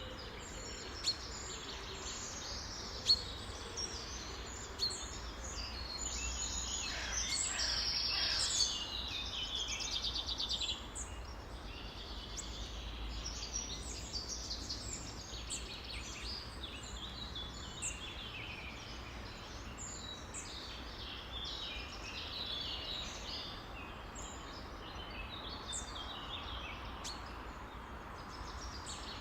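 A dense chorus of many songbirds chirping and calling over one another, with a louder rapid trill about seven seconds in. Three sharp clicks fall in the first five seconds; the middle one is the loudest sound.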